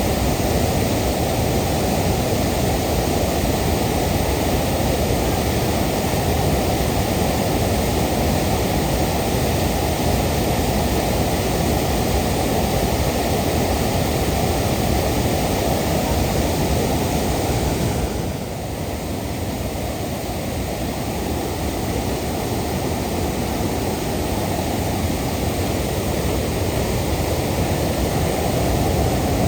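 Waterfall rushing steadily, a loud even wash of falling water that drops a little in level about two-thirds of the way through.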